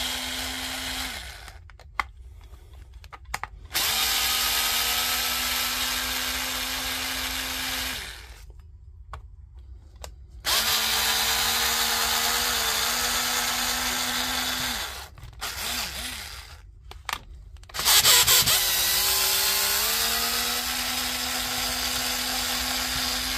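Electric screwdriver running in runs of about four seconds at a steady pitch, backing out the tight screws of a battery pack's case one after another, with short pauses and small clicks between runs.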